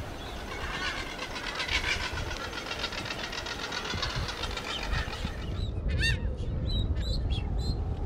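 Galapagos mockingbirds calling: a series of short, sharp calls from about five and a half seconds in, over a low wind rumble. Before that, a dense, fast chatter.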